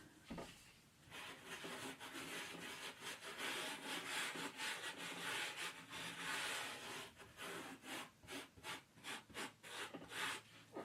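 A stiff washing-up brush scrubbed over carpet to lift cat hairs: a continuous scrubbing from about a second in, breaking into quick separate back-and-forth strokes, about three a second, over the last few seconds.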